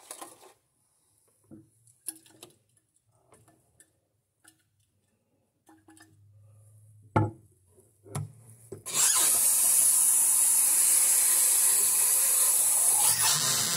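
Faucet water running steadily into a glass bottle for about four seconds, filling it onto orange drink-mix powder, and cutting off near the end. Before it come small rustles and taps from handling the packet and bottle, and one sharp knock about seven seconds in.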